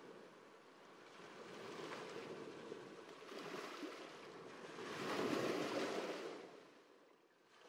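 Sea waves washing: a rushing sound that swells and ebbs several times, loudest a little past the middle, then fades away just before the end.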